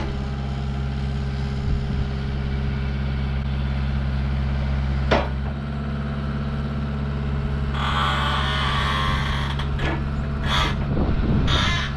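Takeuchi skid steer's diesel engine running steadily while its hydraulics lower a raised truss boom attachment. There is a sharp knock about five seconds in, and a hiss about eight seconds in that lasts over a second, with shorter hisses near the end.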